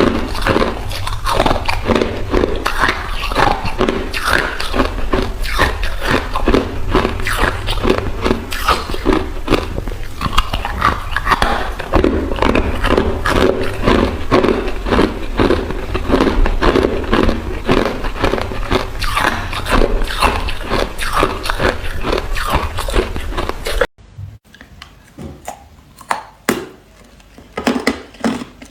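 A person biting and chewing ice close to the microphone: dense, rapid crunching over a steady low hum. About 24 seconds in it cuts abruptly to quieter, sparser crunches.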